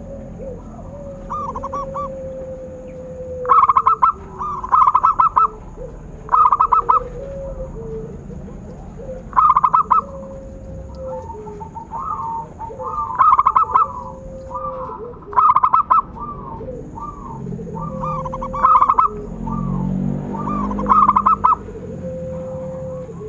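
Zebra doves cooing: repeated phrases of quick, bubbling, trilled coo notes, a loud phrase every second or two with softer coos between. A faint steady high tone runs behind them.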